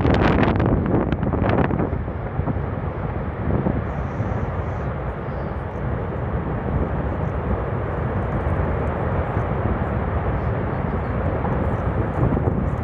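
Erupting volcano's lava fountain giving off a steady, deep, jet-like roar. Gusts buffet the microphone for the first two seconds or so.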